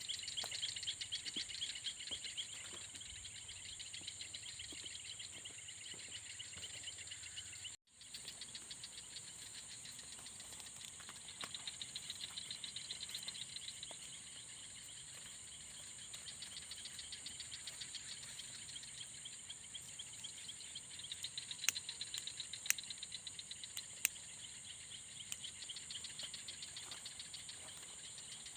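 Night insects such as crickets chirping: a steady high-pitched drone alongside fast, pulsing trills. The sound drops out briefly about eight seconds in, and a few sharp clicks come later.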